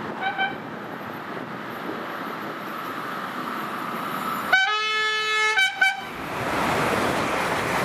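Electric train's horn: two quick toots right at the start, then a long blast about four and a half seconds in followed at once by a short toot, over the rising rumble of the approaching train, which swells loudly near the end as it passes.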